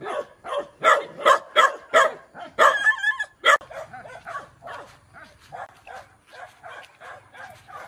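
A dog barking over and over, with a run of loud barks in the first three and a half seconds, then fainter barking after that.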